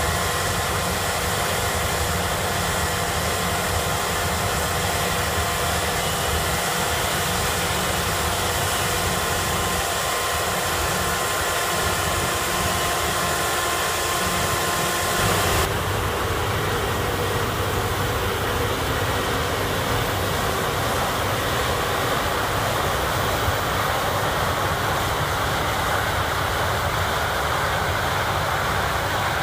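Claas Lexion 760 TerraTrac combine harvester running steadily while harvesting maize, with a tractor running alongside it: a continuous machine drone carrying several steady whining tones. About halfway through the sound changes suddenly: the whining tones stop and a duller drone remains.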